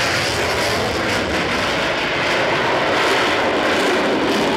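MiG-29 fighter's twin jet engines running at high power as it climbs steeply, a loud, steady rushing noise.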